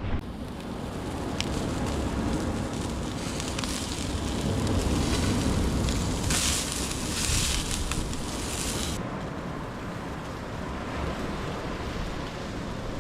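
Wind buffeting the microphone over surf on an ocean beach, with a louder hissing rush of wave wash for about three seconds midway.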